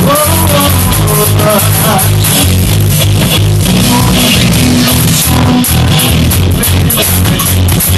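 Loud rock-style music with a steady drum beat, bass guitar and electric guitar.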